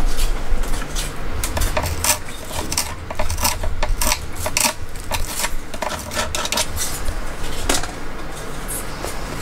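Pliers nibbling at the edge of a glass pane: irregular crunching and sharp clicks of glass breaking off, with a low steady rumble underneath.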